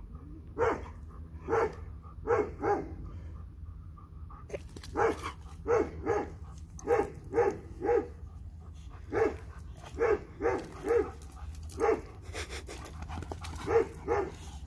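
Dog barking in play: short, fairly high barks in quick runs, about twenty in all, with a pause of about two seconds near the start.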